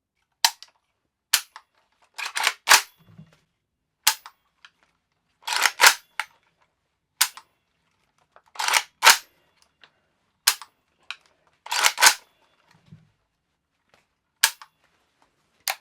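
Sharp metallic clicks and clacks from handling the action of an unloaded PSA Soviet Arms AKS-74U Krinkov-style .300 Blackout pistol, about a dozen, some single and some in quick double or triple clusters, spaced one to two seconds apart.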